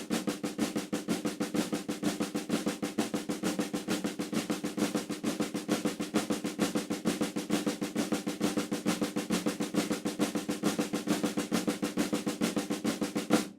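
Snare drum played with sticks in a fast, steady run of the Swiss Army Triplet rudiment: a right-hand flam followed by a right tap and a left tap, repeated over and over with the flams accented. The drumming stops abruptly near the end.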